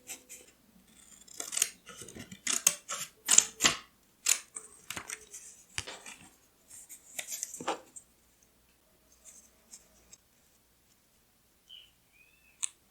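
Scissors cutting paper: a run of quick, sharp snips over several seconds, then only a few faint paper ticks and a single click near the end.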